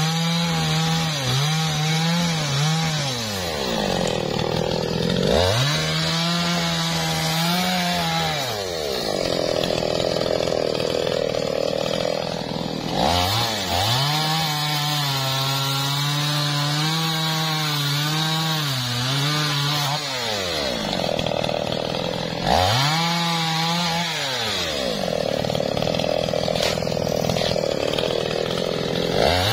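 Two-stroke chainsaw cutting through a felled teak log. The engine runs at high revs during each cut, and several times the revs fall away and climb again as the throttle is eased and reapplied.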